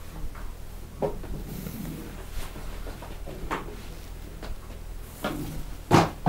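A few separate clunks and knocks from an old barber chair as it is worked and tilted back, the loudest near the end.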